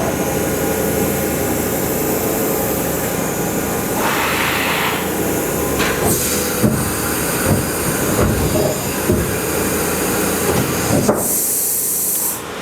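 The built-in rotary automatic pallet changer of a Kitamura Mycenter 3XG vertical machining center cycling: steady machine running noise with spells of air hiss, several clunks as the pallets swap, and a loud burst of air hiss near the end.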